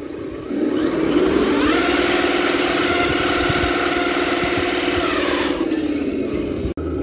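A 1/10-scale RC semi truck's motor and transmission whining as it drives off: the whine rises in pitch as it speeds up, holds steady, then drops as it slows. It cuts off abruptly just before the end.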